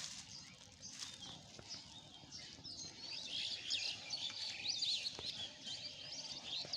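Songbirds chirping and twittering: many quick, high, gliding notes that become busy and overlapping from about halfway through, with a couple of faint clicks.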